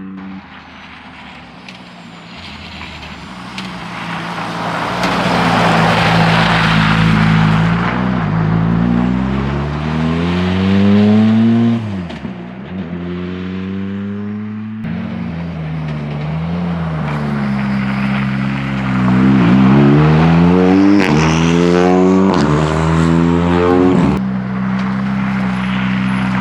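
Rally car engines driven hard on a stage, revving up and dropping in pitch again and again through gear changes and lifts, with a loud rushing noise as a car comes close about a quarter of the way in. The sound changes abruptly a few times, as if between different cars or passes.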